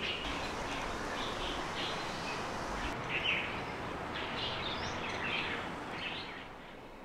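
Birds chirping over a steady outdoor background hiss, the whole ambience fading down near the end.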